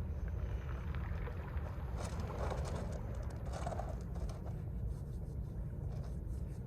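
Mediterranean sea waves washing in and drawing back over the shore, swelling about two and three and a half seconds in, with scattered fine clicks in the wash. A steady low rumble of wind on the microphone runs underneath.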